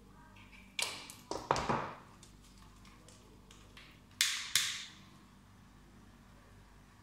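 Short, sharp bursts of hiss, each fading within about half a second: three in quick succession about a second in, then two more about four seconds in.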